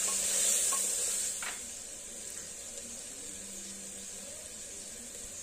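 Soaked chickpeas and ground spices sizzling in hot mustard oil in an open pressure cooker pot while a wooden spatula stirs them. The sizzle is stronger for the first second and a half, with a light knock of the spatula, then settles to a quieter steady hiss.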